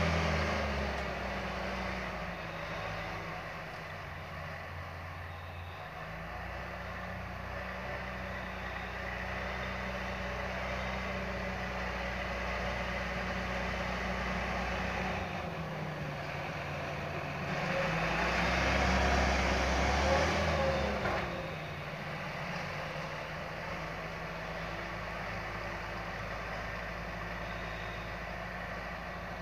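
John Deere front-loader tractor's diesel engine running under load as it drives over and packs down a heap of chopped maize silage. The engine note shifts with the load and rises to its loudest for a few seconds about two-thirds of the way in, then settles back.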